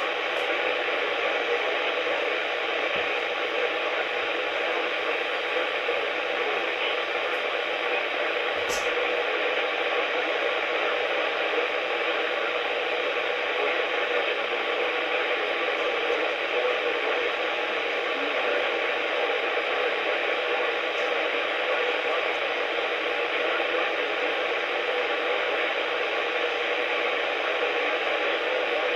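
NOAA weather radio receiver giving out a steady static hiss with no broadcast coming through, with a single faint click about nine seconds in.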